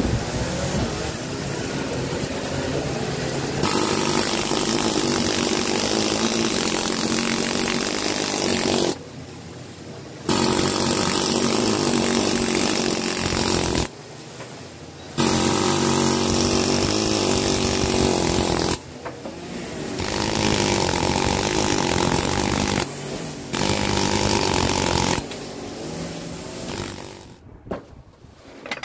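Power tool cutting back old bricks in a wall. It runs under load in stretches of several seconds, with a few short breaks where it stops.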